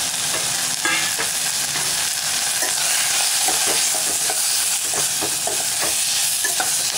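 Onions and tomatoes frying with freshly added spice powders, sizzling in hot oil in a stainless steel pot as they are stirred, with a string of light knocks and scrapes on the pot during the stirring.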